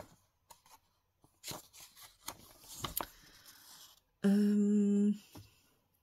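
Sheets of printer paper rustling as they are handled, then about four seconds in a woman gives a steady one-second "mmm" hum as she reads.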